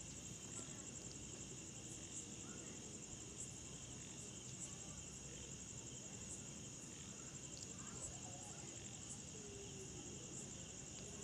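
Faint, steady high-pitched insect trilling.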